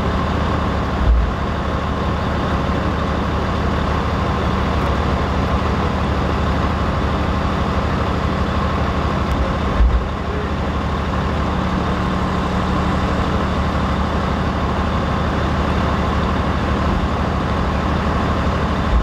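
A large vehicle engine idling steadily, a low even hum. There are two brief low thumps, about a second in and again about halfway through.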